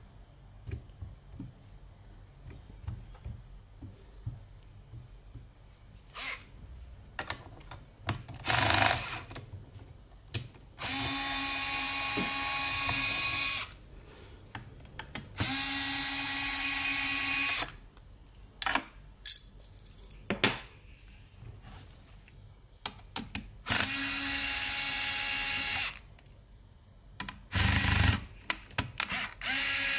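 Small cordless electric screwdriver whirring in steady runs of two to three seconds each, turning screws in a sheet-metal housing. There are three runs, and a fourth starts at the very end. Between runs come clicks and knocks of metal parts being handled.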